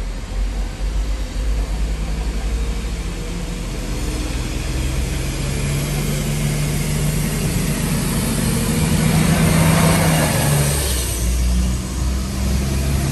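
Polish SA137 diesel multiple unit pulling into the platform, its diesel engine running with a steady low drone that grows louder as the train draws near. A rush of noise swells about ten seconds in as the front of the train comes alongside.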